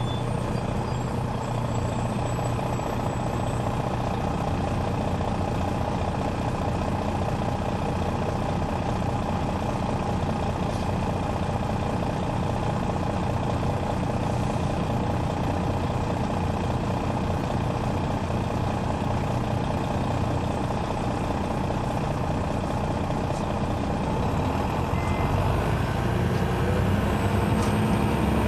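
Detroit Diesel Series 60 engine of a 2001 MCI D4000 coach, heard from on board, running steadily; near the end it grows louder and rises in pitch as the bus picks up speed.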